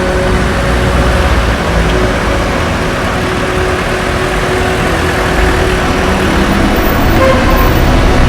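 Cinematic background music: sustained low chords held over a heavy rumbling bass, slowly swelling louder.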